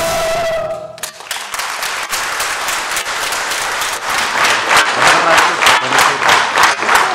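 A choir and string orchestra hold a final chord that cuts off about a second in. Audience applause follows and grows louder about four seconds in.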